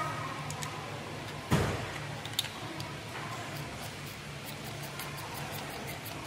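Hand work in a car's engine bay: a single loud knock about a second and a half in and a few light clicks, over a low steady hum.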